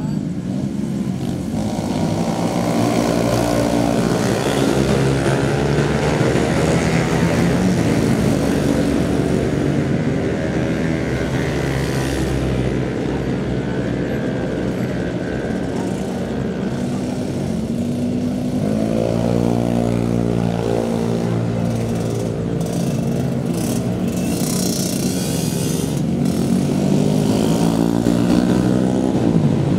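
Motorcycle engines revving as bikes pass through a bend, their pitch rising and falling as they brake and accelerate. The clearest climb in pitch comes about two-thirds of the way through.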